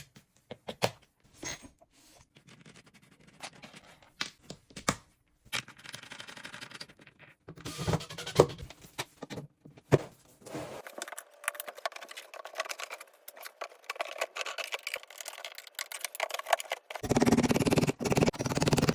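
Clicks, knocks and rattles of hand assembly work in a small room, in short edited segments that change abruptly about 7.5, 11 and 17 seconds in; the last segment, from about 17 seconds on, is the loudest, with a denser noise under the knocks.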